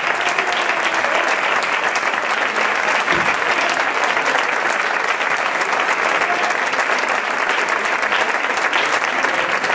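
Steady, dense applause from the audience, with the performers on stage clapping along.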